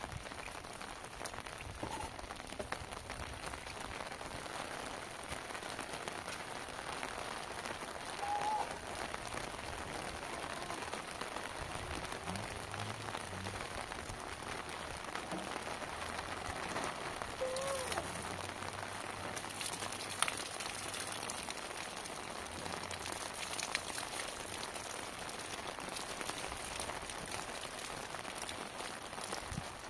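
Steady rain falling, an even hiss throughout, with a few brief knocks.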